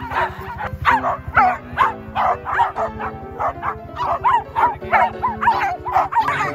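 A pack of small dogs yapping and barking excitedly, short sharp yaps coming about three a second, over background music.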